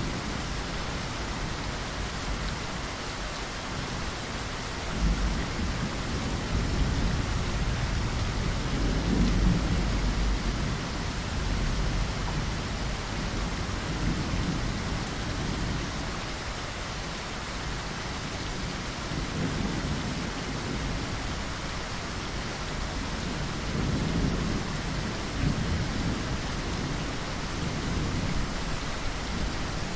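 Steady heavy rain with low rumbles of thunder swelling and fading several times, strongest about five to ten seconds in.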